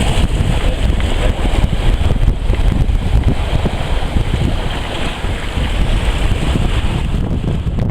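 Strong wind buffeting the microphone over the rush of water along the hull of a Sunmaid 20 sailboat under way, steady throughout.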